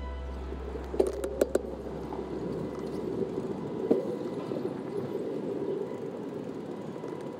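Bicycle rolling across stone paving slabs: a steady rumble of tyres and rattling frame, with a quick cluster of sharp knocks about a second in and another near four seconds.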